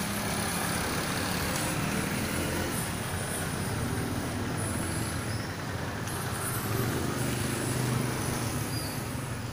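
Road traffic: a motor vehicle's engine running steadily nearby, its low hum swelling about seven seconds in.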